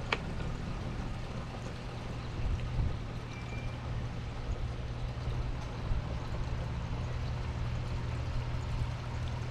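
Clear concrete sealer pouring from a five-gallon bucket into a pump-up sprayer, an even splashing hiss, over a steady low rumble. A sharp click right at the start.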